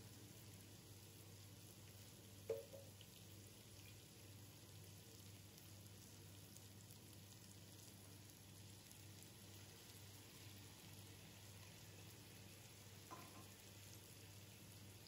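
Faint sizzle of sliced sausage and vegetables frying in a pot. Two sharp knocks cut through it, a loud one about two and a half seconds in and a softer one near the end.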